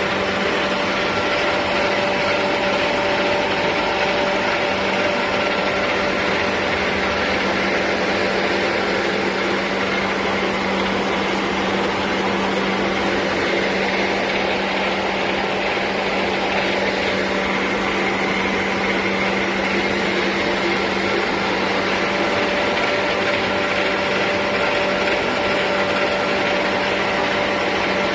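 CNC machine tool running steadily: a constant machine hum with several steady tones over an even noise, unchanging throughout.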